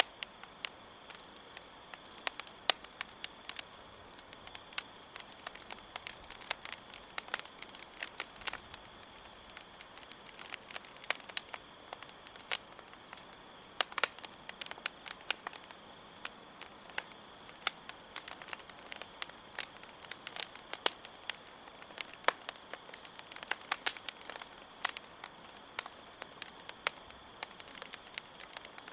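Wood fire crackling with irregular sharp pops and snaps, over a steady high chirring of crickets.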